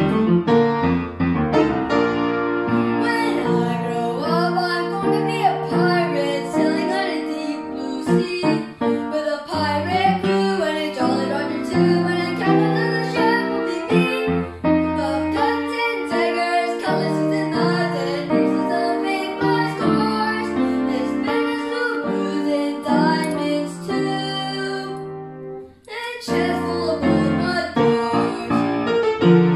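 A boy singing a song with upright piano accompaniment, the piano holding chords under his melody. Both stop briefly near the end, then start again.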